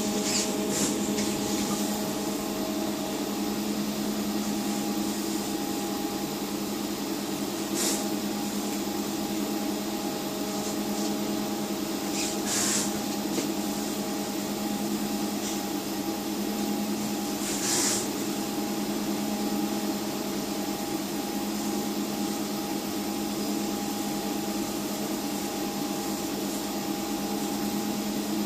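500W 220VAC telecom cabinet air conditioner running with its compressor and fan on: a steady hum with airflow noise, in the first minutes of its run before the cooling is felt. A few brief hissy ticks come through about 8, 12 and 18 seconds in.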